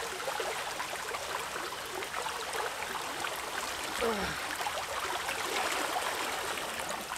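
A small creek running over its stony bed: a steady rushing water sound.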